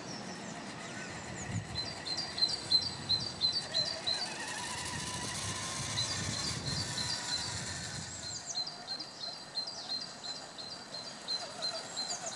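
A small songbird sings series of short, high chirp notes, several a second, in runs of a few seconds. A low rumble lies beneath the song for the first eight seconds or so.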